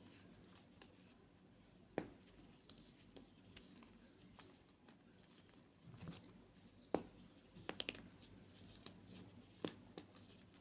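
White gym chalk being crushed: scattered sharp crunches and snaps, a few seconds apart, with a quick run of small crunches about eight seconds in.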